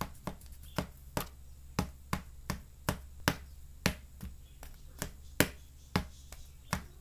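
A run of sharp clicks made with a thin flashlight, irregular at about two to three a second, standing in for a knife chopping, over a steady low hum.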